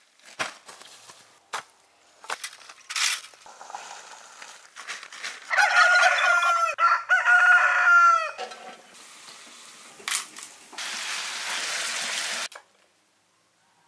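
Scattered rustles and knocks, then poultry calling loudly in a run of repeated, curling calls for about three seconds. After that comes a steady sizzle of chicken pieces frying in oil in a metal pot, which cuts off suddenly.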